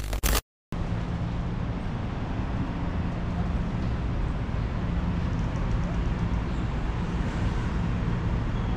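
A short, loud logo sound cuts off in the first half-second. Then steady city street traffic noise follows, with a constant low engine hum.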